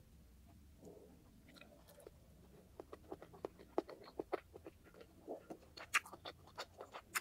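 Close-miked eating sounds: rice being gathered by hand and chewed, giving a string of sharp, wet clicks that starts a few seconds in.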